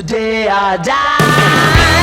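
Background rock music: a held, wavering sung phrase, then the full band comes in a little over a second in.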